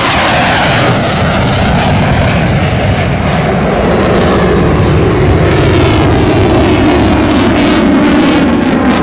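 Eurofighter Typhoon's twin EJ200 jet engines roaring loudly as the jet flies by, with a tone that slides slowly down in pitch.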